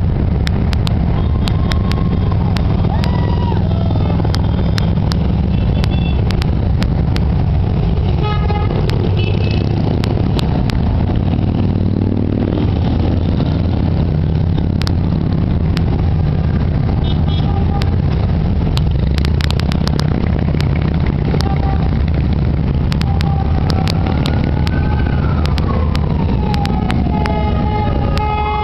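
A procession of large touring motorcycles riding past in a continuous stream, a steady loud engine rumble. A few short horn toots sound along the way, and in the last few seconds a siren wails, falling and then rising in pitch.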